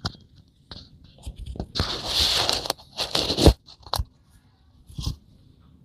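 Handling noise of a small wireless lavalier mic and its plug-in receiver: rustling and scraping with several sharp clicks, the loudest a burst of rustle about two seconds in and a sharp click about three and a half seconds in, as the receiver is plugged into a phone.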